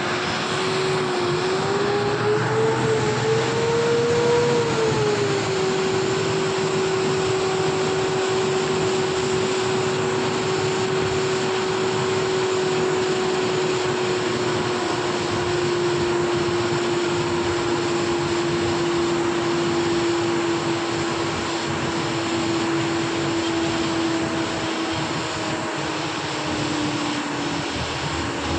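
Small electric motor of a workshop tool running steadily, a whine over a rush of air. The whine rises in pitch about three to five seconds in, then settles and sags slowly near the end.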